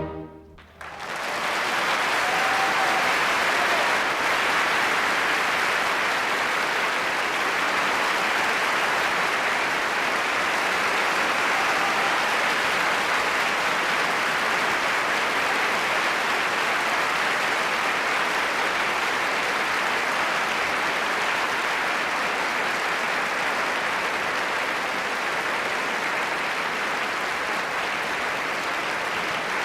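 Concert-hall audience applauding steadily right after an orchestral performance ends. The orchestra's final chord cuts off within the first second.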